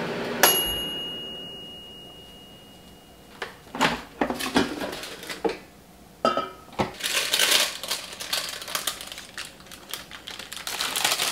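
Air fryer's timer bell dings once about half a second in, ringing out over a few seconds while the fan spins down. Then the basket is pulled out and the cooked corn is lifted out on parchment paper, with clatter and paper rustling.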